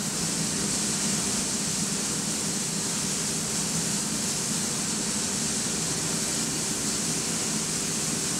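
Coffee roaster's cooling tray, its fan drawing air through a freshly dropped batch of roasted beans while the stirring arms turn them: a steady rushing hiss over a low hum. This is the beans being cooled as quickly as possible to stop the roast.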